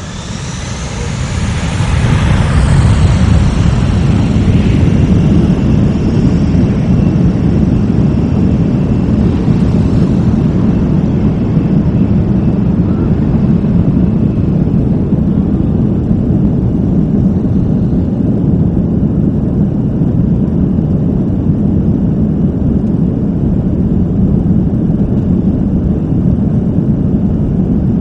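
Airbus A340's four CFM56 jet engines spooling up to takeoff power, heard inside the cabin: a whine rising in pitch and loudness over the first two or three seconds, then a steady, loud rumble as the takeoff roll begins.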